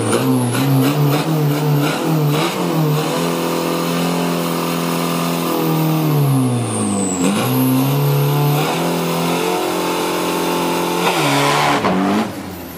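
Isuzu D-Max 3.0-litre turbo diesel drag truck's engine revved hard through a rear-tyre burnout, with the rear tyres spinning. The revs blip quickly at first, then hold high, sag about halfway and climb again, with a high turbo whistle falling and rising along with them, before a last rise and a sudden drop in level near the end.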